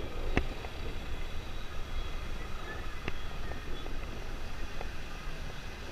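Dirt bike ridden slowly through traffic: a steady low rumble with wind on the helmet-camera microphone, and sharp clicks about half a second and three seconds in.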